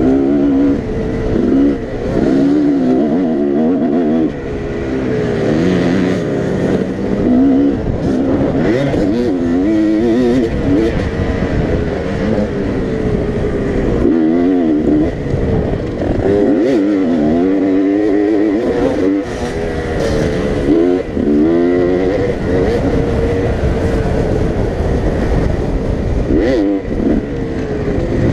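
Dirt bike engine running hard, its pitch rising and falling over and over as the rider opens and closes the throttle and shifts, with wind rushing over the helmet camera and a few sharp knocks from the bike over bumps.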